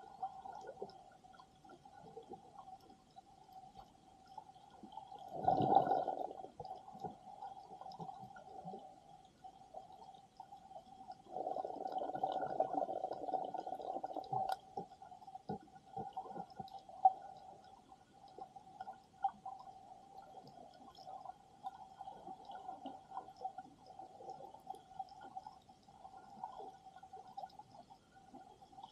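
Muffled underwater sound picked up by a camera held below the surface in shallow sea water. A faint steady hum runs under scattered faint clicks, with a short rush of water about six seconds in and a longer one lasting about three seconds near the middle.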